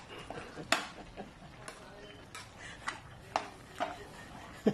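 Metal ladle clicking and scraping against a metal pan while a thick jackfruit stew is stirred: about seven sharp, irregularly spaced taps.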